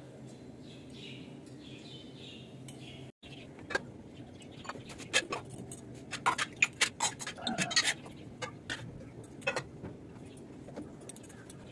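Irregular light clinks and taps of small brass puja vessels and idols being handled, bunched between about four and ten seconds in.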